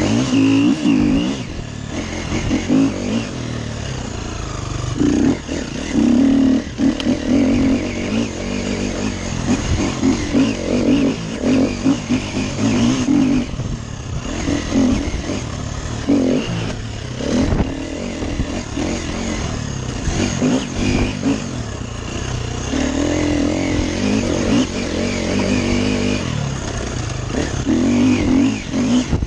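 Dirt bike engine heard from on board, revving up and down constantly as the throttle is worked along a rough sandy trail.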